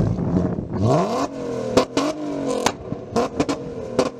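Volkswagen Golf R32's 3.2-litre VR6 engine blipped once: the revs climb quickly about a second in, then fall away slowly, with a string of sharp pops and cracks from the exhaust as they drop.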